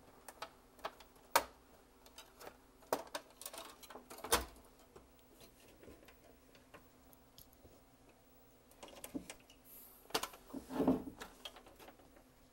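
Irregular clicks, knocks and rattles of a VCR/DVD combo unit's parts being pried and wrestled by hand during disassembly, with two sharper knocks about one and four seconds in and a cluster of handling noise near the end.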